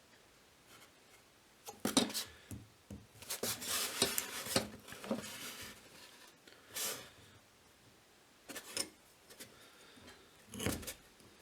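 A marking tool scratching and rubbing across a short bar of square steel stock as lines are laid out on it, in several short bursts with pauses between.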